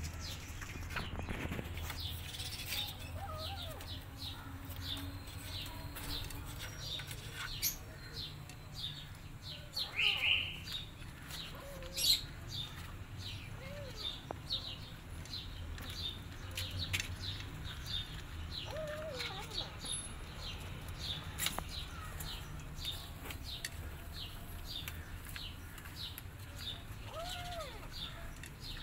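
Small birds chirping in the background, a steady run of short falling chirps one or two a second, with a few faint lower calls now and then and a brief louder squeak and click near the middle.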